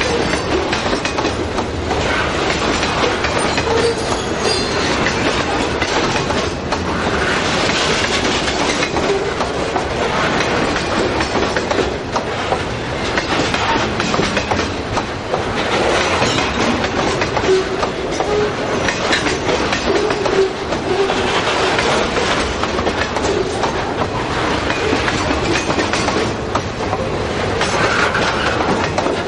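Loaded freight train of hopper cars carrying stone rolling past close by. Its steel wheels rumble and clatter steadily over the rail.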